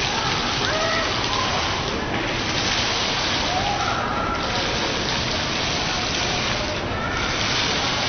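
Computer-controlled waterfall: a curtain of falling water splashing steadily into the basin below, a continuous rain-like rush. The hiss thins briefly every two to three seconds, about three times.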